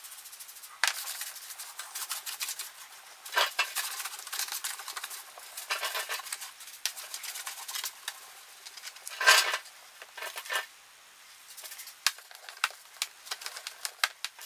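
Detailing clay bar rubbed back and forth over wet, lubricated car paint: a run of quick scratchy rubbing strokes, broken by a few short louder bursts.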